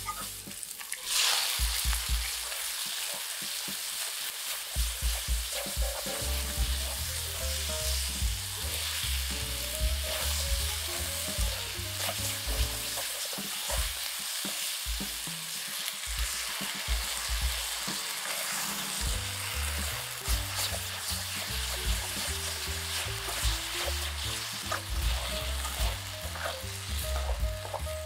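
Oil sizzling steadily in a nonstick frying pan while tofu cubes, shiitake mushrooms and cut green chilies are stir-fried with a spatula. The sizzle jumps louder about a second in.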